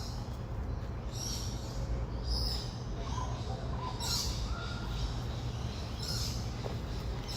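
Pacific koel calling, with a rising whistled note about halfway through, among repeated short high bird calls over a steady low rumble.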